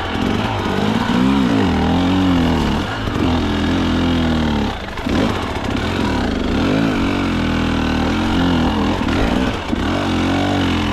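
KTM two-stroke enduro dirt bike engine revving up and down under load, its pitch rising and falling every second or so, with a short drop in level about five seconds in.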